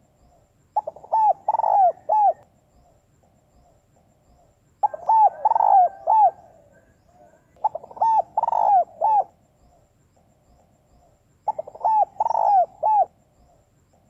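Female spotted dove cooing: four short phrases, each a quick run of several rounded coos, spaced about three to four seconds apart.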